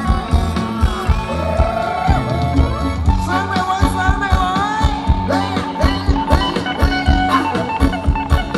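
Live band playing ramwong (Thai circle-dance) music: a drum kit keeps a steady beat under bass and guitars, with a melody line that slides up and down in pitch.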